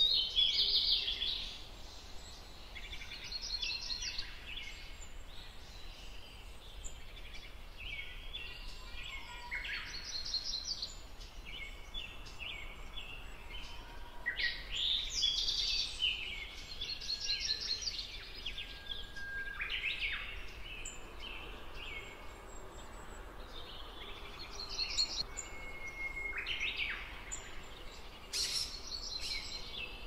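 Several small birds chirping and calling in overlapping bursts, with quick rattling trills now and then and a couple of short level whistles.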